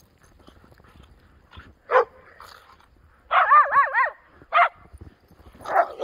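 Dogs barking in play: three short, sharp barks, and about halfway through a loud warbling cry whose pitch wavers up and down for just under a second.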